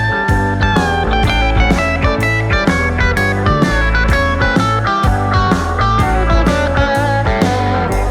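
Background music: guitar-led instrumental over a steady beat.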